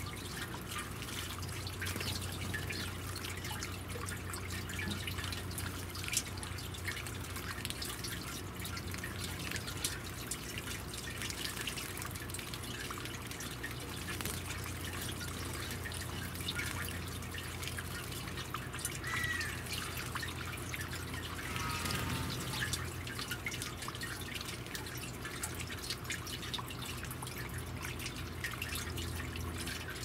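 Water from a pump-fed bird bath fountain trickling and dripping steadily into its basin, a constant patter of fine drips over a low steady hum.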